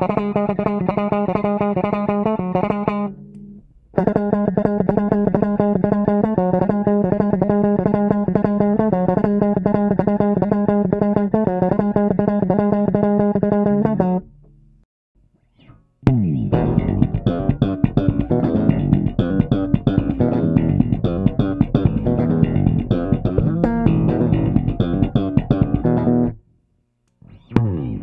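Custom four-string electric bass with a Kent Armstrong MusicMan-style pickup, played solo: a rapid run of picked high notes with a brief break, then after a short pause a fuller passage with more low end, which breaks off briefly near the end.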